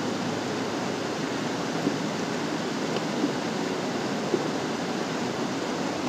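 Steady rushing of a mountain river's water, with a few faint clicks.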